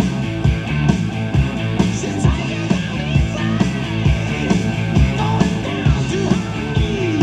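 Rock music with a steady drum beat, played through a pair of ported wooden loudspeaker cabinets driven by the freshly recapped Realistic SA-100B mini stereo amplifier, heard in the room as a listening test.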